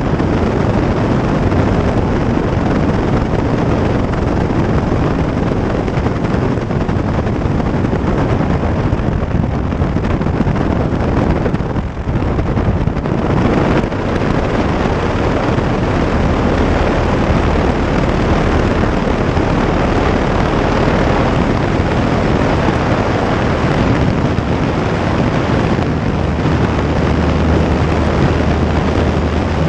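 Propeller-driven light aircraft's engine running steadily, mixed with wind rushing over the microphone. The sound dips briefly about twelve seconds in, and a deeper steady hum grows stronger near the end.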